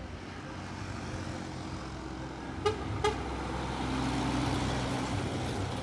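Volvo FH12 truck's 12-litre six-cylinder diesel running as the tractor unit pulls a container trailer past, getting louder about four seconds in as it draws level. Near the middle, two short horn toots sound in quick succession.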